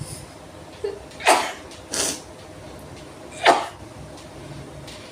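A woman sneezing, set off by sniffed chikni sneezing powder: sudden, loud sneezes about a second and a half in and again about three and a half seconds in, with a shorter noisy burst between them.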